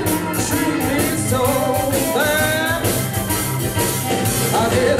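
Live electric blues band playing an instrumental passage: drum kit, electric guitar and keyboard under a harmonica playing bending lines.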